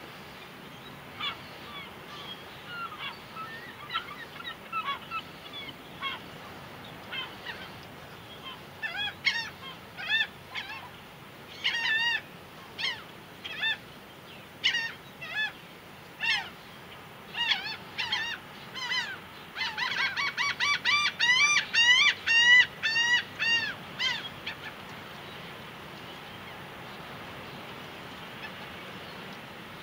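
Laughing gulls calling: scattered calls at first, building into a rapid, loud run of laughing calls about twenty seconds in, then dying away to a faint steady background hiss.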